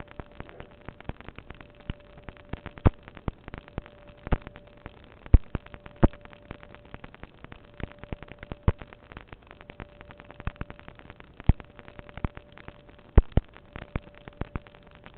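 Irregular sharp pops and clicks, a few a second, some much louder than the rest, over a faint steady tone and hiss. The source of the popping is unexplained.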